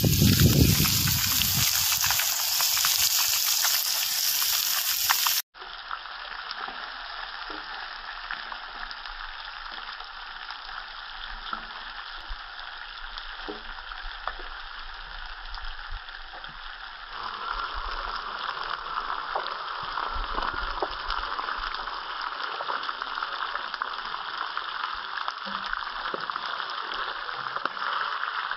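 Masala-coated fish pieces frying in hot oil in a shallow pan, a steady crackling sizzle. It is loudest for the first few seconds as a piece is laid in, then drops suddenly to a quieter, even sizzle that grows a little louder about two-thirds of the way through.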